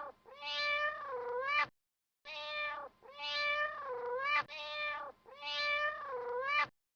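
Domestic cat meowing in repeated pairs: a short meow followed by a longer, drawn-out meow that dips in pitch and rises again, three times over.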